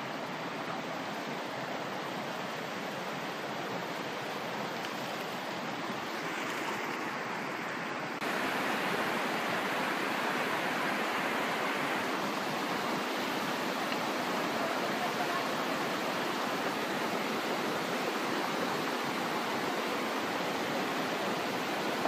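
Steady rush of falling water and spray from a mountain waterfall, a little louder from about eight seconds in.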